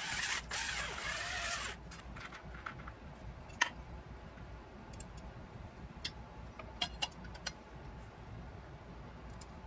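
A cordless drill with a spinning attachment runs against an aluminium plate and stops about two seconds in. Then come a few light clicks and taps as the aluminium plate is handled and laid against the metal frame.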